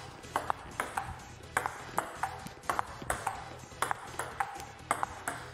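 Table tennis ball knocked back and forth in a fast rally: sharp clicks off the paddles and the table, about three a second.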